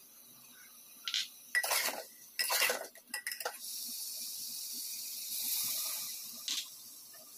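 Steel spatula scraping and clanking against the sides of an aluminium pressure cooker while stirring the masala, several knocks in the first half. Then liquid is poured in from a glass bowl onto the hot masala, which sizzles with a steady hiss for a few seconds.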